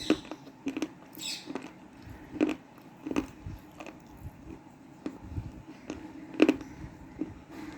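A person biting and chewing hard pieces of dried black cement, with sharp crunches at irregular intervals and two loud bites, about two and a half and six and a half seconds in.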